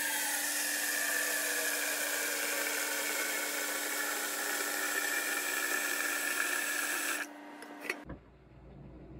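Tap water running into a stainless steel pot, a steady splashing hiss with a ringing tone that slowly falls in pitch as the pot fills. The water cuts off about seven seconds in, followed by a couple of light knocks as the pot is handled.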